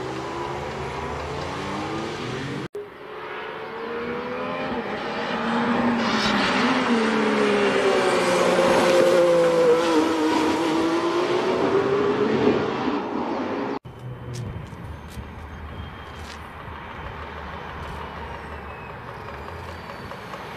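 Mercedes-AMG One prototype's turbocharged 1.6-litre V6 engine in three short clips: a car driving by, then a louder high-speed pass where the engine pitch climbs and then falls as the car goes by, then quieter low-speed running near the end. The sound cuts abruptly between clips.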